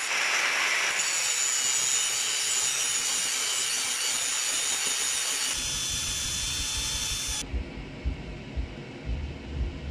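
Angle grinder with a thin abrasive disc cutting through the steel of an antique hatchet head, a steady high whine and gritty grinding hiss that cuts off suddenly about seven and a half seconds in. After that only a low, uneven rumble remains.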